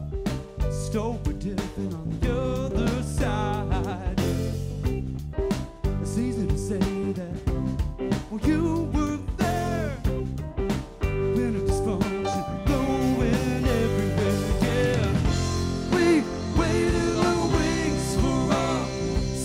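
Band playing live: electric guitars, keyboard and drum kit, with bending guitar or vocal lines over the beat. The cymbals get busier about halfway through.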